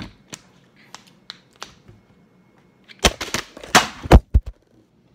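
Light clicks of a plastic water bottle being handled and its cap twisted. About three seconds in comes a burst of loud knocks and clatter as the camera is knocked over, with the loudest knock near the end.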